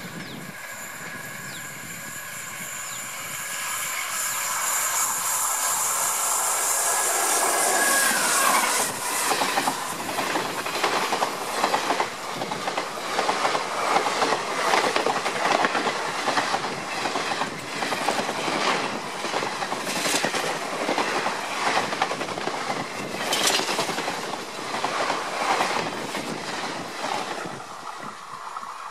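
WAM-4 electric locomotive and its passenger coaches passing at speed. The sound builds as the train approaches, and the locomotive's steady tones drop in pitch as it goes by about eight seconds in. The coaches' wheels then clatter rapidly over the rail joints, fading near the end as the train recedes.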